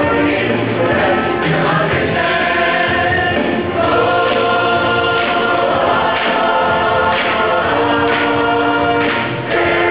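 High-school show choir singing in harmony, many voices holding sustained chords.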